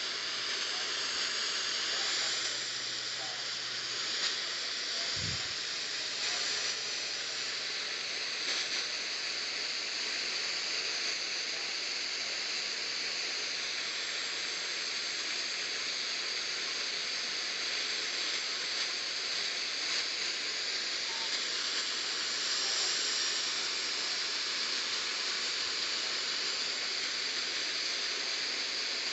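Steady hiss of radio static from a receiver tuned to NOAA Weather Radio, with no voice or alert tones coming through.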